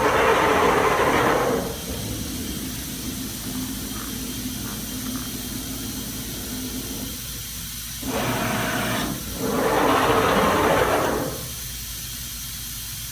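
Steady machine hum broken by three loud hissing bursts: one lasting over a second at the start, then two close together about eight and ten seconds in.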